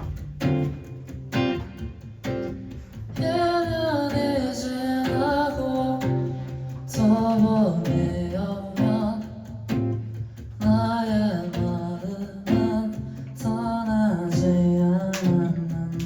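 Acoustic band music: an acoustic guitar strummed in a steady rhythm, with a voice singing a melody over it from about three seconds in.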